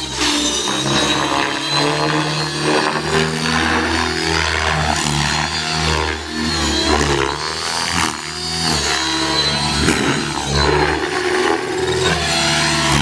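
Radio-controlled helicopter flying stunts, its motor and rotor whine rising and falling in pitch as it flips and swoops past.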